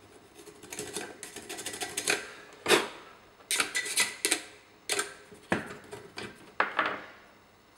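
Irregular clicks, taps and light scraping of small hard parts as the skid mount of a wall-finishing tool is cleaned out by hand, with one sharper knock a little under three seconds in.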